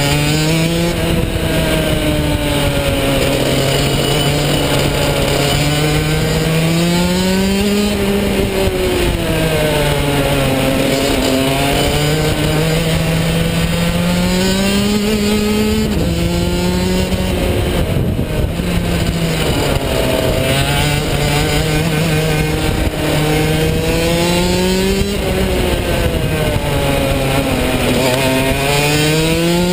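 Rotax DD2 shifter kart's 125cc two-stroke engine at full racing effort, heard from the driver's helmet: the pitch climbs for several seconds at a time along the straights, then drops sharply into the corners, over and over through the lap.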